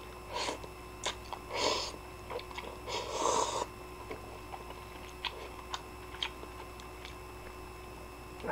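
A person slurping instant ramen noodles off chopsticks in three short noisy bursts within the first few seconds. After that comes quieter chewing with a few faint clicks.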